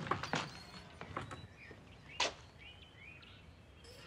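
A few knocks and thumps from a screen door on a wooden porch, the loudest about two seconds in, with faint bird chirps behind.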